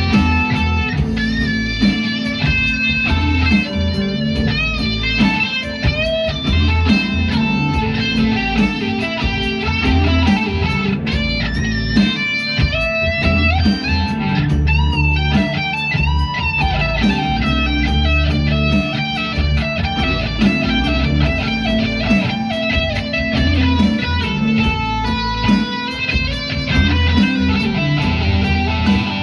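Music: a guitar piece with electric guitar lines over a steady bass beat, bent notes throughout.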